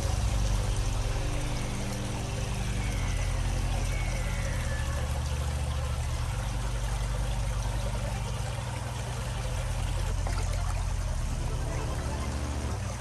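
Steady pouring and splashing of water, under background music with held low notes that change every few seconds.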